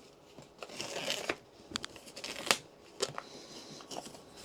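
A wooden presentation box being opened and handled: a few sharp wooden clicks and knocks, the loudest about two and a half seconds in, between patches of soft rustling.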